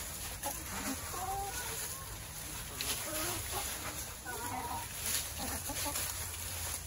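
A flock of hens clucking in short, overlapping calls while they scratch through a deep litter of dry leaves. The leaves rustle under their feet.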